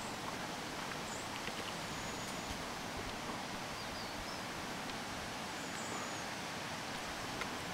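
Steady outdoor background hiss, with a few faint, brief high bird chirps about a second in, near four seconds and near six seconds.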